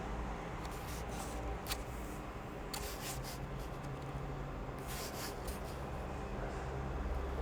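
Short scraping and rubbing strokes in three brief clusters, about one, three and five seconds in, over a low steady hum.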